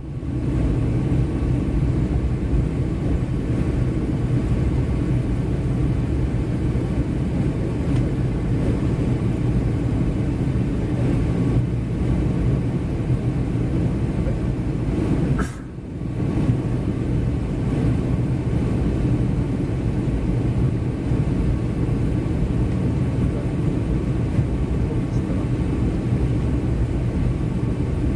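Steady low rumble of a Boeing 757-200 heard inside the passenger cabin: engine and airflow noise. It drops away briefly about fifteen seconds in and then resumes unchanged.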